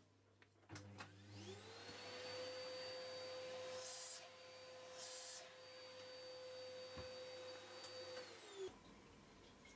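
Trim router spindle of a home-built four-axis CNC mill spinning up to a steady high whine about a second and a half in, while milling teeth into a small helical gear. Two short hissing bursts come around four and five seconds in, and near the end the whine cuts off with a brief drop in pitch.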